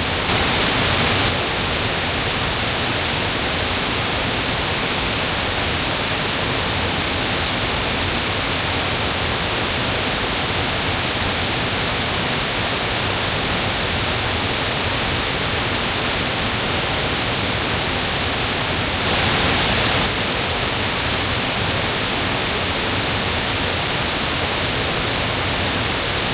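Steady rush of fast-flowing mountain stream water, an even hiss with no pauses. It swells briefly louder and hissier near the start and again about two-thirds of the way through.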